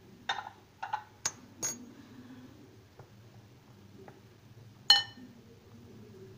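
A metal spoon clinking against a glass bowl while stirring a dry milk-powder and flour mix: a few light clinks in the first two seconds, then one sharp ringing clink about five seconds in, the loudest.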